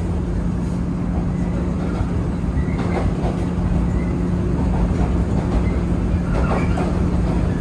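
Inside a JNR 113-series electric train running at steady speed: a steady hum from the traction motors under a low rumble of the wheels on the rails, with a few clicks as the wheels pass over rail joints.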